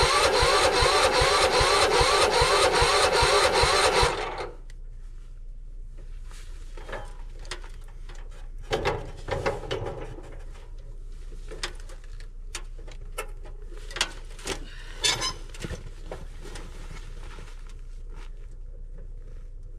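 Lawn tractor's starter motor cranking the cold engine in an even rhythm of several strokes a second for about four seconds without it catching, then stopping. Scattered clicks and knocks follow.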